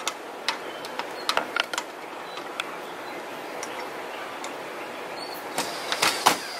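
Small metal clicks and taps of screw hardware being fitted to an RV awning arm bracket. Near the end a cordless drill runs briefly, driving a screw, with a burst of sharp clicks.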